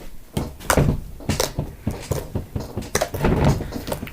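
Irregular soft knocks and clicks, several a second, of objects being handled and set down.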